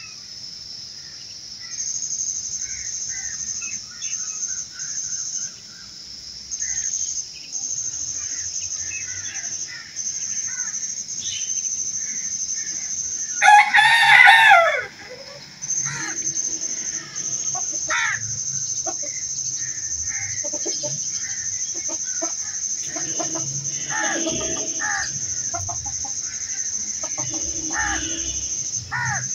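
A rooster crows once, loudly, for about a second and a half around the middle, its call falling away at the end. Behind it a steady high-pitched insect drone and scattered bird chirps continue throughout.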